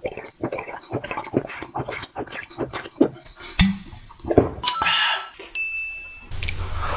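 Close-miked eating and food-handling sounds: a quick run of small clicks, crackles and clinks. Two-thirds of the way in comes a short steady high beep, and a steady noisy hum follows near the end.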